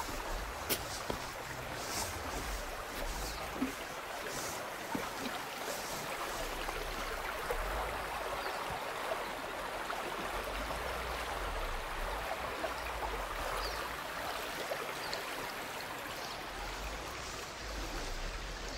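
Shallow mountain creek flowing over a gravel bed: a steady, even rush of water.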